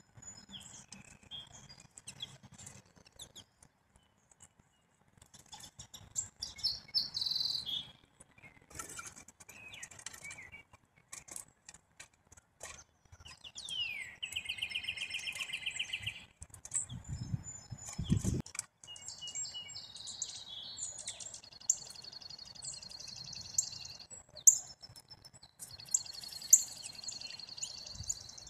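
Small songbirds chirping and calling with many short high notes, including a rapid buzzy trill about fourteen seconds in. Two low thumps come a few seconds later.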